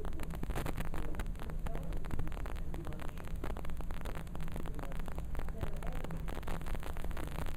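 Steady low electrical hum with dense crackling static over it.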